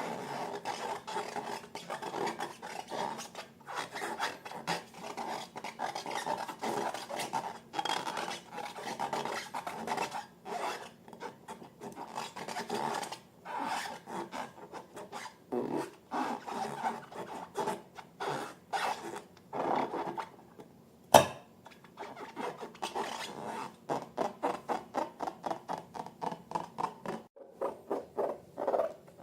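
Slime being stirred and squished in quick repeated strokes, a crackly rubbing sound, with one sharp snap about two-thirds of the way through.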